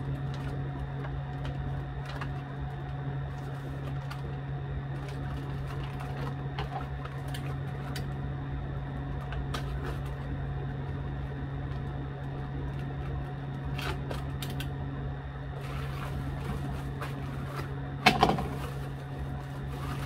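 A steady low machine hum with a few fainter steady tones above it, like a running fan or other appliance. Over it come scattered small clicks and crinkles as a plastic bag of mite sachets is handled, and one sharper knock near the end.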